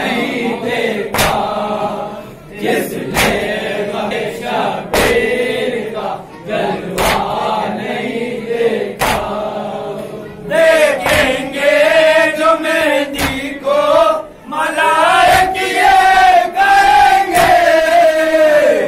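Men chanting a Shia salaam (noha) together, with sharp hand strikes of matam chest-beating on a steady beat about every two seconds. About halfway through, a lead voice comes in singing louder and clearer over the group.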